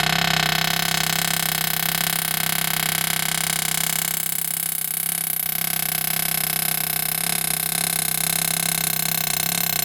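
A motor running steadily at constant speed, a continuous droning tone with many overtones.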